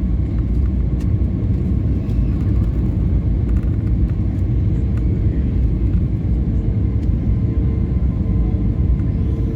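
Steady roar of airflow and engines heard inside an Airbus A320neo cabin on approach with the landing gear down, with a faint steady whine above the rumble.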